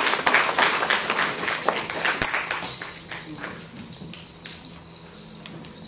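A small audience clapping, tapering off after about three seconds.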